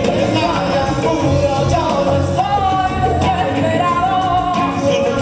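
A rock band playing live, with electric guitars, keyboard and drums, and a sung lead vocal over them.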